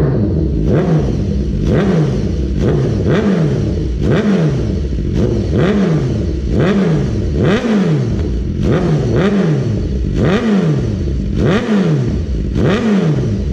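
2014 BMW S1000RR's inline-four engine, breathing through a full Akrapovic titanium exhaust system, blipped again and again while standing still: about one quick rev a second, pitch shooting up and dropping straight back, with a short crackle at each one. It is loud.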